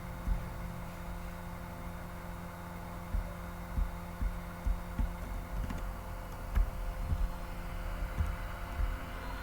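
A steady mechanical hum made of several fixed tones. Irregular low thumps come in from about three seconds in.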